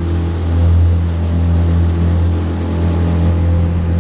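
Small motorboat's engine running steadily while the boat is underway, a constant low drone.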